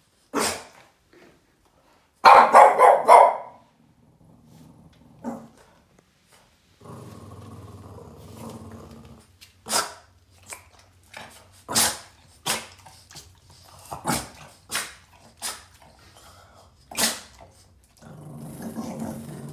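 Angry Boston terrier barking and growling: a quick run of barks a couple of seconds in, a low growl in the middle, then short sharp barks about one a second, and another growl near the end.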